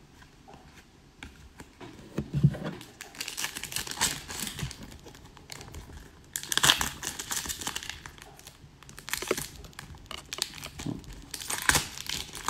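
Foil trading-card pack wrapper being torn open and crumpled by hand, crinkling in several bursts as it rips apart in pieces. A dull bump a couple of seconds in.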